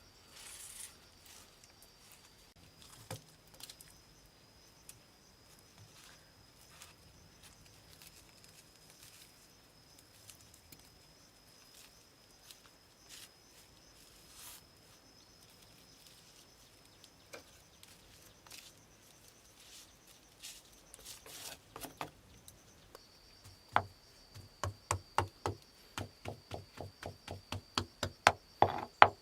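A steady high thin tone with scattered faint clicks and ticks. In the last five or six seconds a fast run of loud, sharp knocks starts, about three or four a second.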